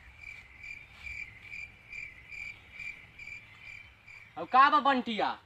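Cricket chirping in a steady rhythm, about two and a half high chirps a second. Near the end a loud, wavering voice-like call cuts in over it.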